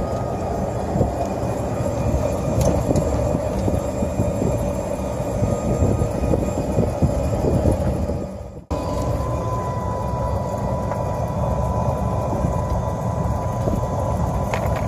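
Golf cart driving along a cart path: a steady low rumble with many small rattles and knocks from the cart, and a thin steady whine above it. A little past halfway the sound cuts out abruptly for a moment, then resumes.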